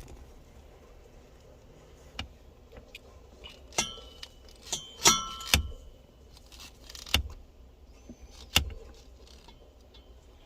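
About half a dozen sharp metallic taps and clinks, unevenly spaced, a few ringing briefly: a new brass shifter bushing in a Nissan 300ZX being tapped into the shifter fork.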